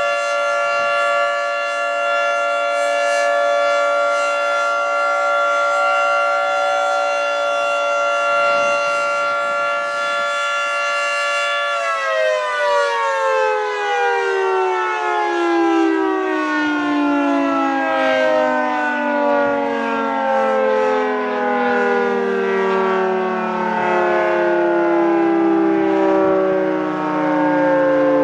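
Federal Signal 3T22A three-tone outdoor warning siren sounding its steady alert chord, several tones held together. About twelve seconds in the rotor power is cut and the whole chord starts winding down, its pitch falling steadily.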